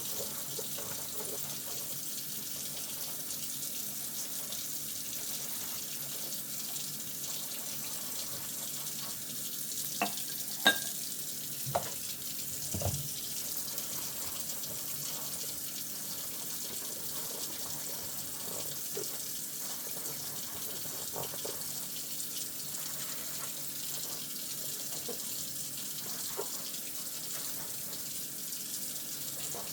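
Kitchen tap running into a sink while dishes are washed by hand, a steady hiss of water. About a third of the way through come a few sharp clinks and knocks of dishes being handled, the loudest near 11 seconds.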